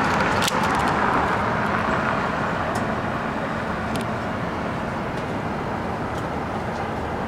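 Road traffic noise: passing cars' tyre and engine sound, a steady rush that eases off slowly, with a few faint clicks.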